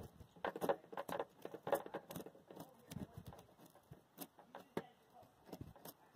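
A butter knife scraping and cutting at a small bluegill on a board: a run of quick, irregular scrapes and clicks.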